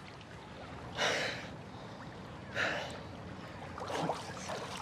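Pool water sloshing and splashing as a person moves about in a swimming pool, with two short, louder splashes about a second and a half apart and a smaller one near the end.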